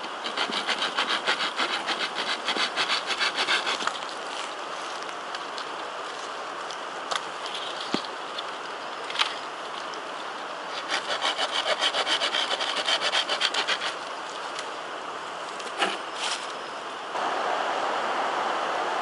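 Hand saw cutting through wood: two bouts of quick, even back-and-forth strokes, with a few sharp knocks in between. A steady rushing noise sets in near the end.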